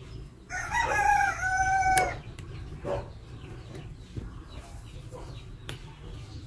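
A rooster crows once, a single call of about a second and a half that steps and glides down slightly in pitch before it stops, followed by a few faint ticks.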